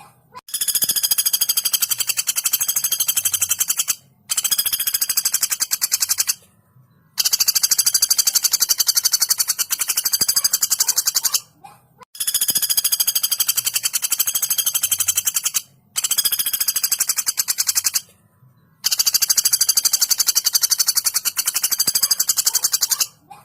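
A female common flameback woodpecker (pelatuk bawang) giving long, fast rattling trills. The calls come about six times, each a run of even, rapid notes lasting a few seconds, with short pauses between them.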